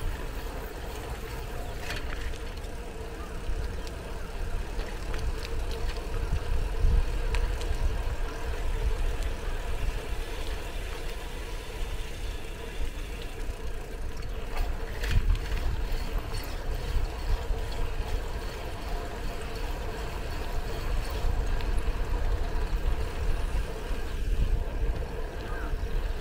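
Riding a mamachari city bicycle: a steady low rumble of tyres on the road and wind on the microphone, with a faint steady hum and a few sharp clicks and rattles along the way.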